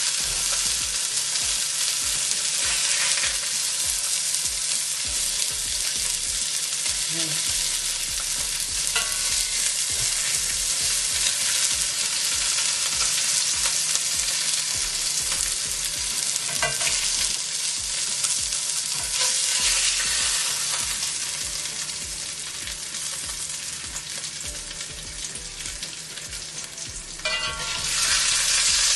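Oil sizzling in the frying pan where salmon fillets have been pan-seared, a steady hiss that dips for a few seconds late on and comes back strongly near the end.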